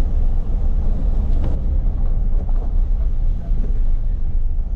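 Car driving slowly, heard from inside the cabin: a steady low rumble of engine and road noise.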